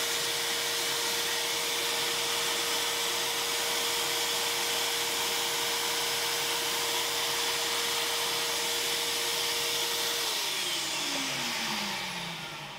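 Vacuum cleaner running steadily, sucking loose model railway ballast up through a collector head and hose. It is switched off about ten seconds in, and its motor whine falls away as it winds down.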